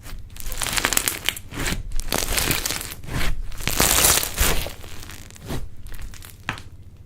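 Slime being squeezed and handled, making a run of crackling, crinkling noises full of small pops. Loudest in the middle, thinning out near the end.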